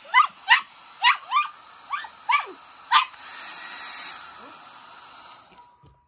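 Mini Bernedoodle puppy barking in short, high-pitched yips, about seven in the first three seconds, protesting at being blow-dried. About three seconds in comes a second-long rush of hiss, then a softer hiss that fades away.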